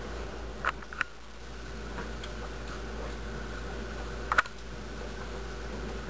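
Steady low hum and hiss, broken by two pairs of short, sharp clicks, one pair just under a second in and another a little after four seconds.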